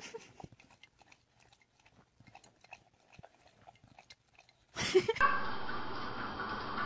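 A small dog licking and lapping at a drinking glass: a run of faint, irregular wet clicks. About five seconds in, the sound cuts to a much louder steady noise with a short sharp sound at its start.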